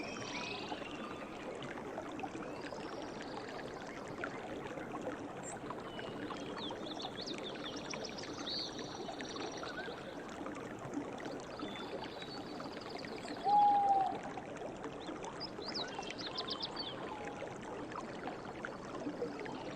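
Forest ambience: a stream running steadily, with birds chirping now and then. One louder, short, low whistled call comes about two-thirds of the way through.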